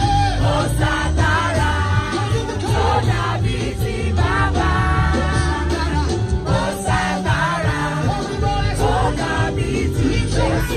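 Loud music with a heavy bass, with many voices of a crowd singing along.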